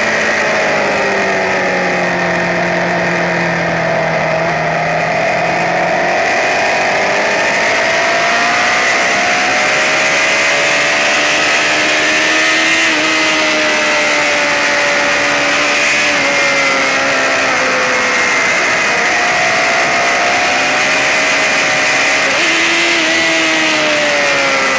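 Racing sportbike engine running hard, its pitch rising and falling over several seconds as the throttle opens and closes, over a steady loud hiss.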